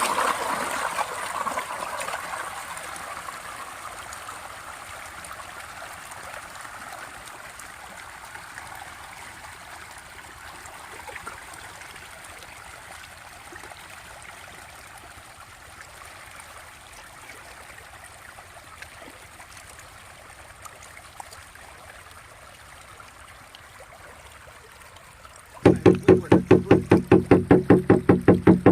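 Water splashing and trickling, loudest in the first couple of seconds and then settling to a steady light trickle. Near the end, music with a fast pulsing beat comes in.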